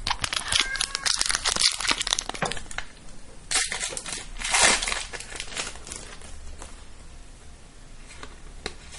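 Foil trading-card booster pack wrapper crinkling and tearing as it is opened: a quick run of crackles over the first three seconds, two louder rustles about three and a half and four and a half seconds in, then fainter handling.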